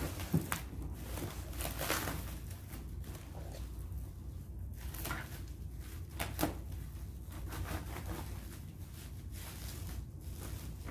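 Cardboard box and packaging being handled and opened: scattered rustles, scrapes and light knocks, with a sharper knock near the start and another about six and a half seconds in, over a steady low hum.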